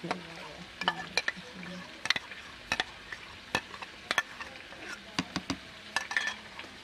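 Chicken gizzards frying in oil, a faint steady sizzle with scattered sharp clicks and taps through it.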